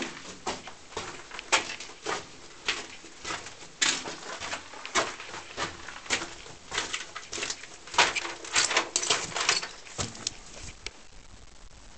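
Footsteps crunching over scattered debris and then rustling through long dry grass, irregular crackles about one or two a second with a quick flurry near the end.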